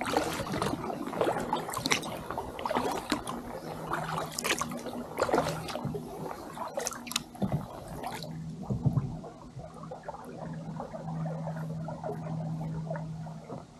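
Kayak paddle strokes: the blades dip and pull through calm lake water, with drips and small splashes for about the first eight seconds. After that the kayak glides, with only soft trickling water.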